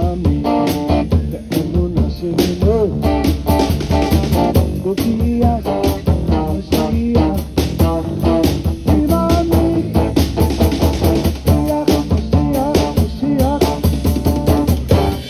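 Live Chasidic rock band playing with guitars, bass guitar and a drum kit keeping a steady beat.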